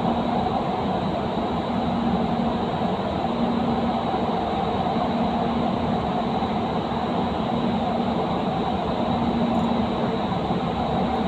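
Doha Metro Gold Line train running at speed through a tunnel, heard from inside the front car: a steady rumble of wheels and track with a faint hum.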